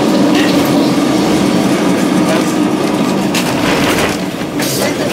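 Old Lisbon number 28 tram car running fast, heard from inside: a steady rumble of wheels on the rails with the car body rattling and creaking, and a few sharp clacks in the second half.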